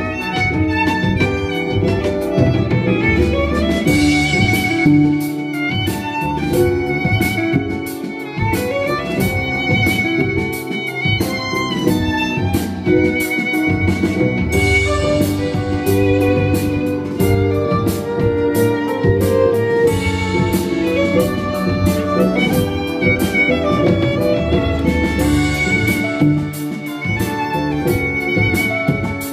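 Violin and double bass duo playing a pop-classical piece: the bowed violin carries the melody with vibrato over a plucked double bass line.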